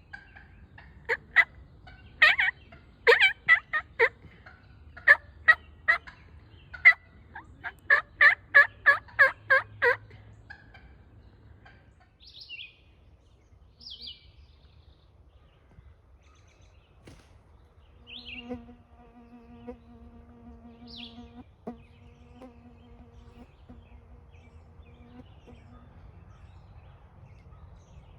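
Wild turkeys calling: a run of loud, short, sharp notes repeated in quick groups for about ten seconds, then stopping.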